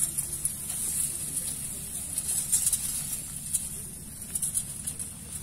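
Ripe rice plants rustling and swishing irregularly as people walk through them along a narrow paddy path.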